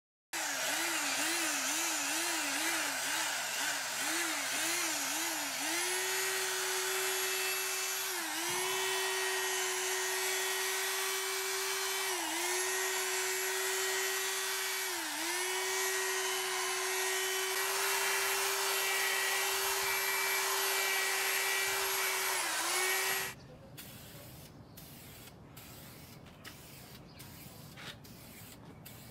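Electric drill spinning a sanding/polishing pad against a plastic headlight lens. The motor's pitch wavers with the trigger at first, then holds steady with a few brief dips as the pad bears on the lens. It stops abruptly about 23 seconds in, leaving only faint handling clicks.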